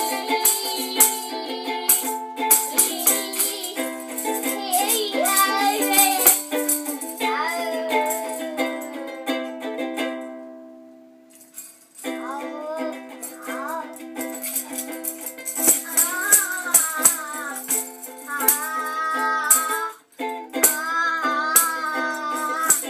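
Ukulele strummed with a rattle shaken along and a voice singing. The music dies away about ten seconds in and starts again about two seconds later.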